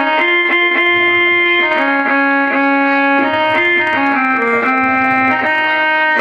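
Keyboard instrument playing a melody of held notes as an instrumental interlude in a stage play's music.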